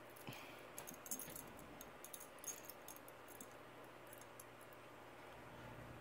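Faint small clicks and scrapes of a connector being worked loose from the DJI Spark drone's circuit board, most of them in the first half, over a faint steady hum.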